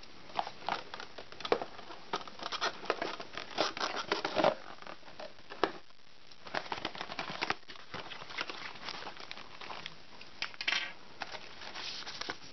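Cardboard packaging and plastic accessory bags being handled: irregular rustling and crinkling with light knocks and taps, briefly quieter about six seconds in.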